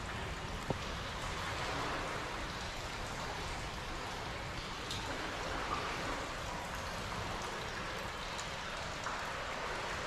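A steady hiss of moving water over a low, uneven rumble, with one faint click about a second in.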